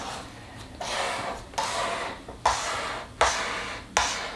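Black felt-tip marker drawn across paper in about five short scratchy strokes, each under a second, as a row of small scalloped arcs is drawn.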